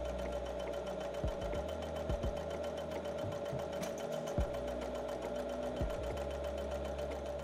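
Janome HD9 sewing machine stitching free-motion embroidery at a constant mid-range speed held by its speed-control setting, the needle running steadily with a few soft low knocks along the way.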